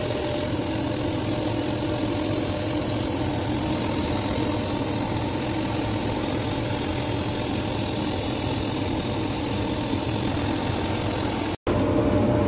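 CNC laser cutting machine running while it cuts a part from a fibreboard sheet: a steady hiss with a low machine hum. The sound cuts out sharply for an instant near the end, then carries on.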